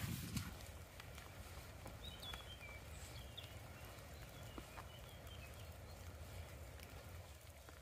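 Quiet open-air ambience: a low wind rumble and a soft steady hiss, with a few faint, high bird chirps from about two to five seconds in.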